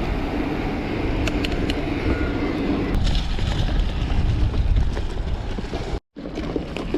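Gravel bike riding: the rumble and hiss of tyres rolling over gravel and sand, with wind buffeting the microphone and a few sharp ticks in the first two seconds. The sound cuts out for a moment about six seconds in.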